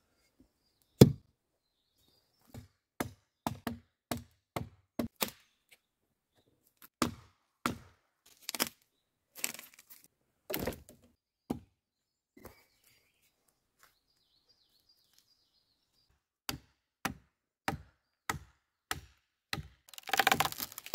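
Hatchet chopping wood: a run of sharp single strikes, uneven at first with the loudest about a second in, then after a pause of a few seconds a steadier run of blows about two a second. A short burst of noise comes at the very end.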